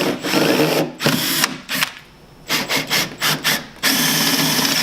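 Power drill boring a hole through a snowmobile's tunnel. The drill runs hard, stops, is pulsed in several short spurts, then runs steadily again near the end.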